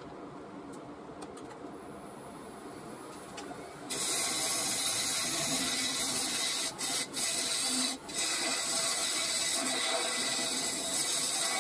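Wood lathe running with a mulberry bowl on it; about four seconds in, a bowl gouge starts cutting the inside of the bowl, a steady, much louder shearing hiss as shavings come off, with three brief breaks where the tool leaves the wood.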